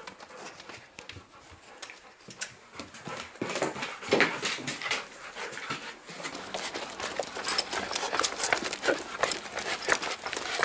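A golden retriever puppy moving about excitedly on a leash: a quick run of claw clicks and paw scuffles, first on the indoor floor and, from about halfway through, on outdoor pavement.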